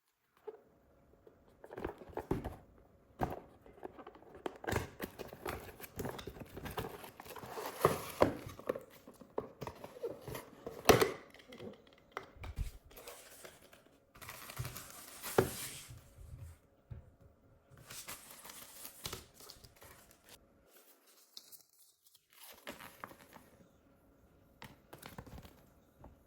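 Packaging being handled and torn open: irregular crinkling and tearing with scattered sharp clicks and knocks, busiest about a third of the way in.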